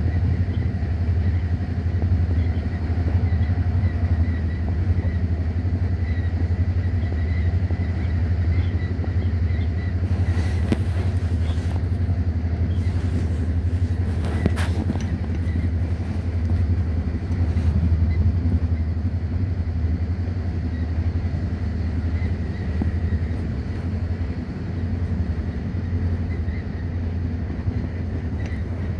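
Steady low rumble of a vehicle in motion, with a few brief hisses about ten to fifteen seconds in.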